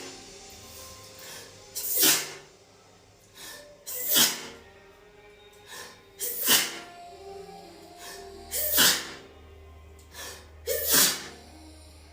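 A woman sneezing over and over: five loud sneezes about two seconds apart, with quiet music underneath.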